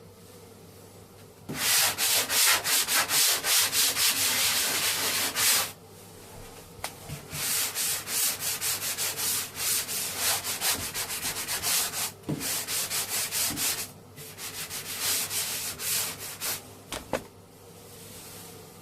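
Sandpaper rubbed back and forth over a repaired bathroom plaster join, about four or five quick scraping strokes a second. It comes in three spells with short pauses between them.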